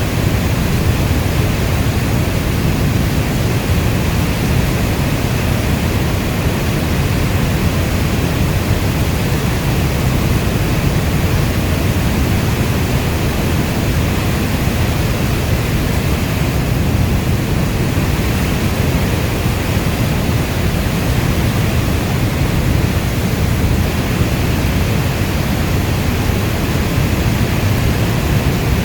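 Steady heavy rainfall as a dense, even hiss, deepest in the low end, with no separate drops, thunder or changes standing out.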